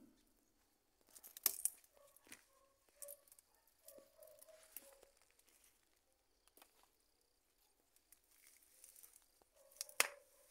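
Leaves rustling and plant stems snapping and tearing as they are picked and pulled by hand: scattered sharp snaps and rustles, the loudest about a second and a half in and again near the end.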